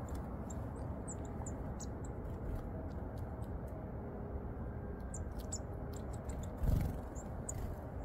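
Small birds giving short, thin, high chirps over a steady low background rumble. About two-thirds of the way in comes a brief low flutter of wings as a varied tit takes off from the hand.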